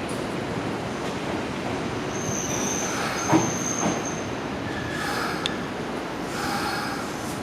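Electric commuter train running into the platform and slowing, its wheels and brakes squealing in high steady tones, with a single clunk about three seconds in.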